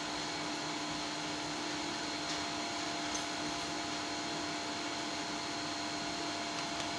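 Steady whirring of a fan-driven electric appliance, an even hiss with a constant hum.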